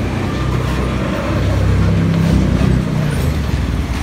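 Steady low rumble of motor vehicles running.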